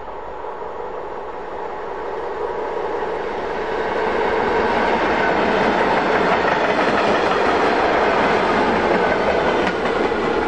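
Class 460 'Tornádo' electric multiple unit passing by on the track. It grows louder over the first few seconds and stays loud through most of the rest.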